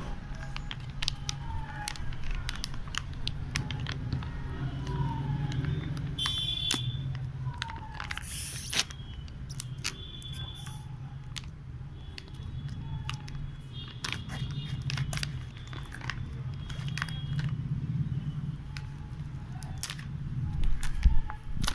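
Hands handling a plastic supplement tub and its packaging: many scattered sharp clicks and crinkles over a steady low hum.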